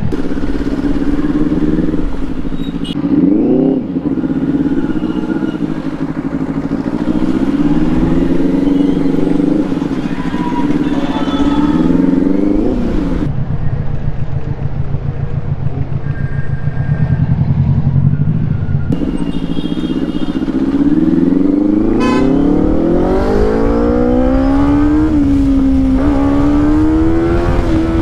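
Benelli 600i inline-four motorcycle engine under way, revving up and dropping back several times as it changes gear. It settles to a lower, steadier note around the middle, then pulls up again in a long rising climb broken by short dips at the shifts.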